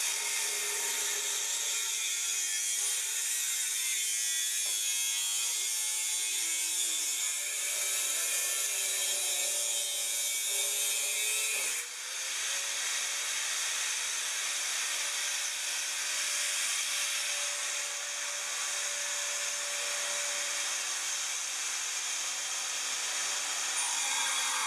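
Angle grinder cutting into a stainless steel lorry silencer pipe: a steady, harsh cutting noise with the motor pitch sagging and recovering under load, and a brief dip about halfway through.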